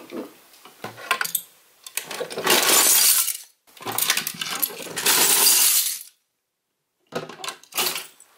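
Loose Lego bricks and small plastic toy pieces clattering and rattling in the body of a toy garbage truck as it is moved and tipped up to dump its load. Two long stretches of clatter, then a sudden break and a few shorter clatters near the end.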